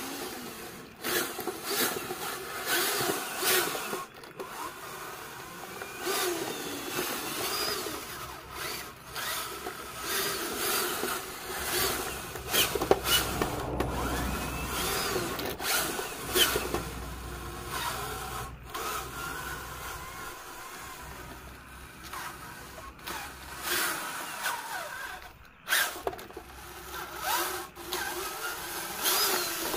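Electric motor and gearbox of a radio-controlled 6×6 Kamaz dump truck model whirring on and off, with scattered sharp clicks and knocks.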